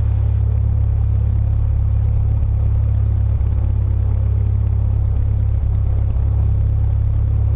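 Cessna 172 Skyhawk's piston engine and propeller running steadily at low power on the ground, a constant low drone heard from inside the cabin.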